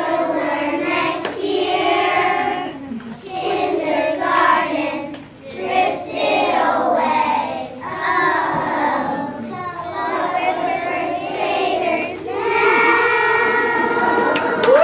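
A class of young children singing together as a group, phrase after phrase, ending on a long held note near the end.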